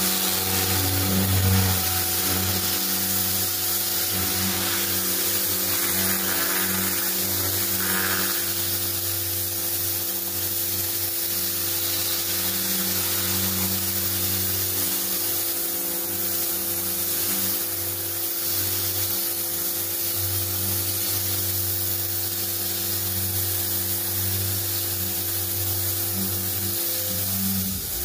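Karcher K3.91 electric pressure washer running steadily, its motor and pump giving a constant low hum under the hiss of the water jet on a garage door.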